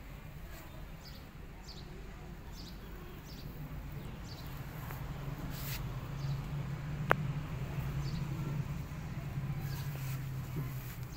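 Garden ambience: small birds chirping in short high notes over a steady low hum, with a single sharp click about seven seconds in.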